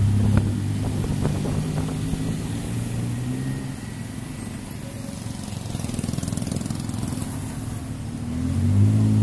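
Tuk-tuk (auto rickshaw) engine running while the vehicle drives in traffic, with road noise; the engine drops back about four seconds in and comes up louder again near the end.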